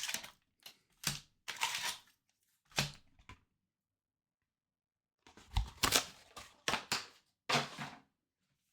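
Trading-card box packaging being handled and torn open: short bursts of rustling and tearing. A pause of nearly two seconds falls in the middle, and a soft knock comes about five and a half seconds in.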